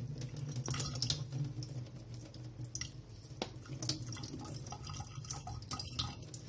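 Water dripping and trickling from a plastic colander of rinsed mung bean sprouts into a stainless steel sink as it is tilted to drain, with scattered light clicks and taps. A steady low hum runs underneath.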